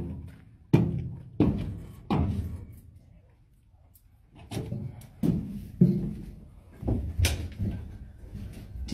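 A series of heavy thuds, about eight, each with a short ringing decay, with a lull about three seconds in.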